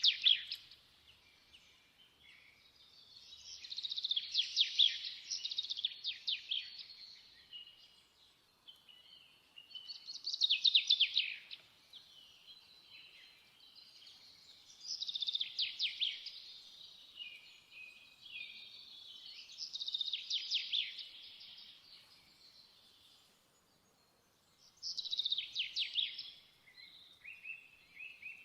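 Songbird singing, repeating a quick trilled phrase of about two seconds roughly every five seconds, with quieter chirps between.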